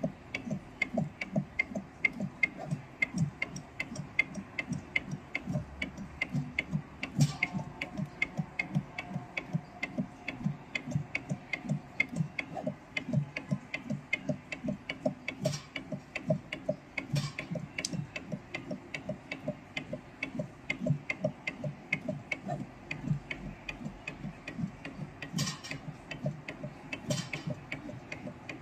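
Automatic soldering machine running: a fast, even mechanical ticking at about three to four ticks a second as it works along the circuit-board pads, with a few sharper clicks in between.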